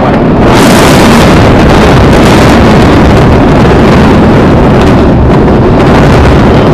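Very loud, steady rumbling roar of the Supertech twin towers collapsing in a controlled demolition, starting suddenly near the beginning and heaviest in the low rumble.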